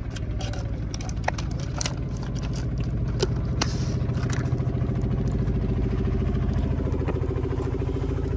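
An engine runs steadily, getting slightly louder over the stretch, with scattered sharp clicks and knocks close to the microphone.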